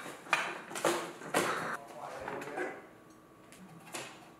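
Kitchenware clattering: a few sharp clinks and knocks in the first two seconds. After a quieter stretch comes a single click near the end as a small air fryer's basket is pulled out.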